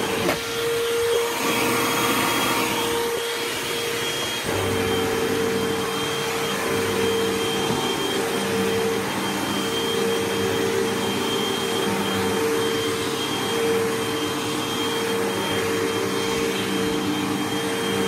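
A Hoover WindTunnel Whole House Rewind upright vacuum runs steadily on carpet, with its brush roll turning on a freshly replaced belt that is working, not smoking. About a second in, the low hum drops away and a rushing air hiss rises for a few seconds, then the steady motor sound returns.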